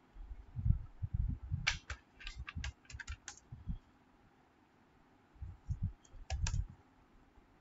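Typing on a computer keyboard: a quick run of keystroke clicks about two to three seconds in and a few more near the end, with dull low thumps among them.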